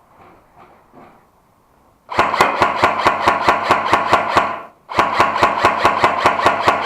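Electric airsoft gun firing on full auto in two long bursts about two seconds in, rapid evenly spaced clacks over the steady whine of the gearbox motor.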